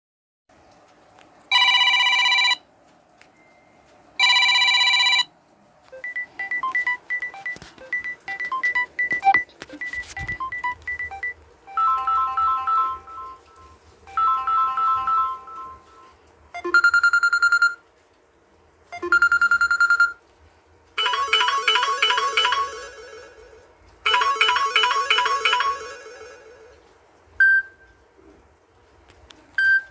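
Samsung Galaxy A51 ringtones played one after another as short electronic tones and melodies, most patterns sounding twice before the next. First come two long buzzy tones, then a run of quick melodic notes, then several short repeated phrases, including fast trilling ones near the end.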